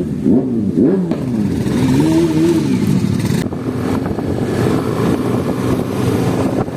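Kawasaki ZX-6R inline-four engine revved on the spot: two quick throttle blips near the start and a longer rev about two seconds in, then running steadily.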